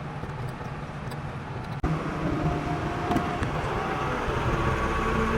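Heavy machinery running with a steady low engine hum; about two seconds in the sound breaks off abruptly and returns louder, with a higher steady whine over it.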